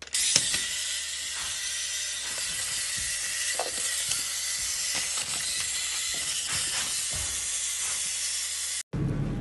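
A steady high hiss, with a few faint scattered ticks.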